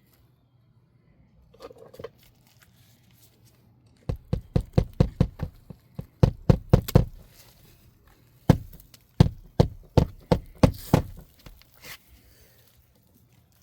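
Repeated dull knocks in quick runs of about three a second, starting about four seconds in, with a short pause between the runs.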